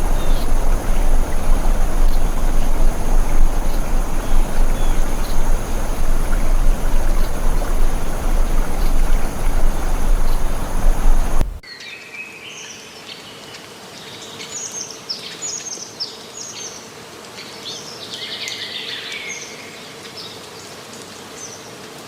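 A loud, steady rushing noise with faint high steady tones above it, which cuts off suddenly about halfway through. After it come wild birds calling: many short, high chirps and a brief trill over a quiet background.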